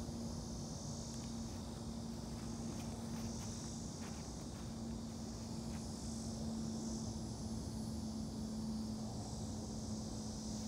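Steady outdoor ambience: a high insect buzz that swells and fades every second or two, over a steady low hum and a low rumble of wind on the microphone.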